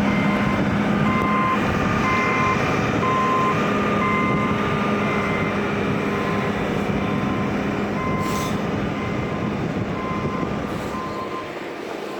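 Vehicle back-up alarm beeping over and over at an even pace, over a heavy engine's steady hum and a loud rumble. The rumble and hum ease off near the end.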